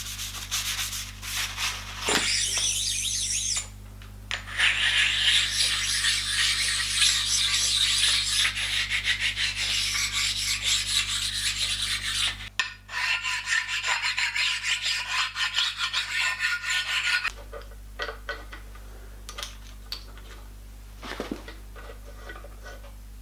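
Metal shaping machine cutting a cast iron plate: the tool scrapes loudly through the iron in long stretches over the steady hum of the machine's motor, then the scraping stops and only a few light ticks remain.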